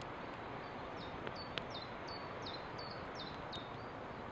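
A small songbird repeating a short, high, falling note about three times a second over a steady rushing outdoor background. Two sharp clicks come just before the calls begin.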